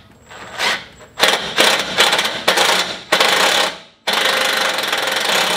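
Cordless impact driver hammering in several short bursts, then one longer continuous run near the end, as it drives the winch mounting bolts home into the bull bar.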